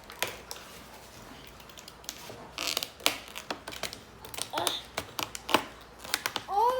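Hands working at toy packaging to get it open: irregular clicks, taps and scrapes of plastic and cardboard, with a short crinkle about two and a half seconds in.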